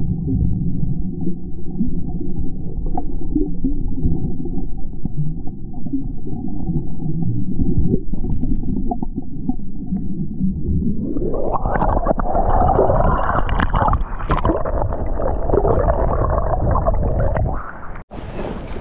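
Muffled water movement and surge recorded under water among rocks, a dull low rumble. About eleven seconds in it becomes brighter and fuller, then it cuts off abruptly near the end.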